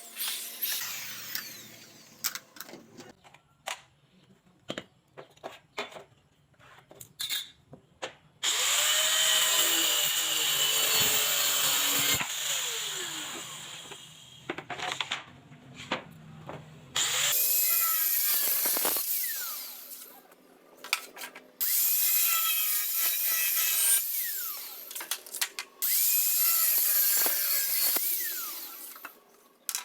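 Power drill running in five bursts of two to four seconds each during woodwork. Scattered clicks and knocks come before the first burst and between the later ones.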